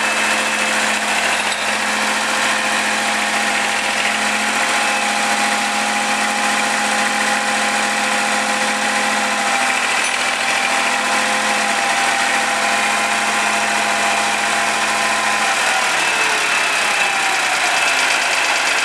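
Vintage road roller's engine idling steadily. About fifteen seconds in, its note drops and slows.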